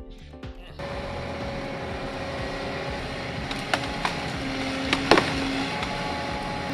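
A heavy hydraulic tree-felling machine running steadily, with a few sharp snaps a little past the middle.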